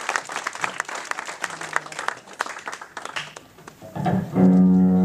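Audience clapping, thinning out after about three seconds, then a loud, steady held instrumental note starting about four seconds in.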